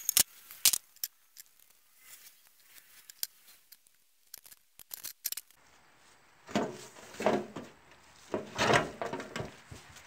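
Steel drums and their metal lids being handled: sharp clanks and knocks in the first second, scattered light ticks, then a few louder rough scraping noises over the last few seconds.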